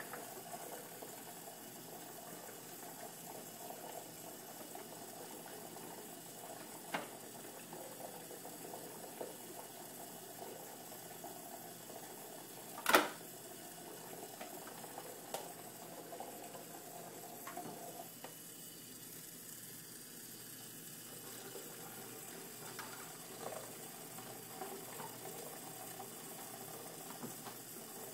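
Kitchen tap running steadily into a sink of soapy water, with occasional knocks of small plastic dishes against the sink. One knock about halfway through is much louder than the rest.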